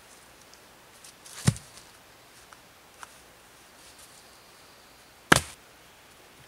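Two sharp knocks of wood, about four seconds apart, as sticks and poles are handled, with a few faint clicks and rustling between them.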